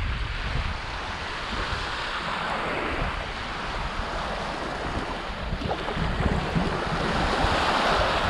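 Small waves breaking and washing up a pebble beach, with a wash that swells louder near the end. Wind buffets the microphone underneath as a low rumble.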